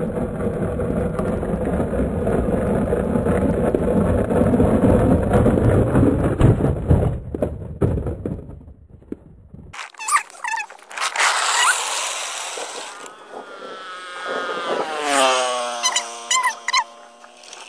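Gritty rolling rumble of plastic toy-truck wheels running down rough asphalt, heard from a camera riding along with the trucks, cut off abruptly about ten seconds in. After the cut comes a run of short pitched sounds and tones that slide in pitch.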